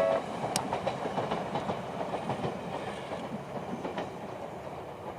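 The crossing's electronic alarm bell cuts off just after the start. Then an Ueda Electric Railway 1000 series electric train's wheels rumble and clack over the rail joints, slowly fading as it moves away from the crossing.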